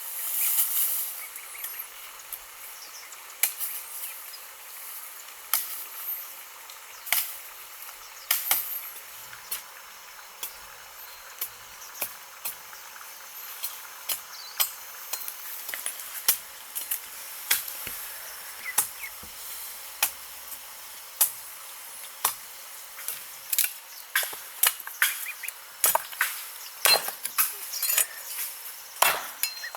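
Sharp knocks of a hand tool striking wood, irregular at about one a second and coming faster near the end, over a steady high-pitched background hiss.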